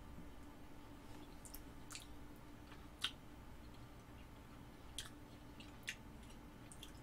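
A person quietly chewing a mouthful of instant spaghetti noodles, with a few faint wet mouth clicks, the loudest about three seconds in.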